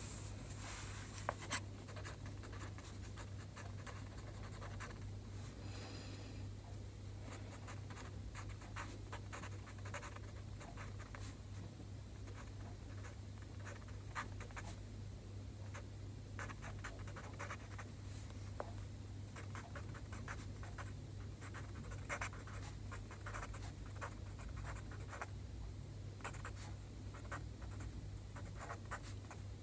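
Pen writing on paper: short scratchy strokes in quick, irregular succession as Chinese characters are written, over a steady low hum.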